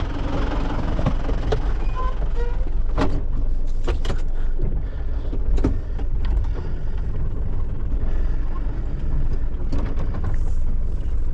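Hino rollback tow truck's diesel engine running, heard from inside the cab, a steady low rumble with scattered clicks and knocks from the cab.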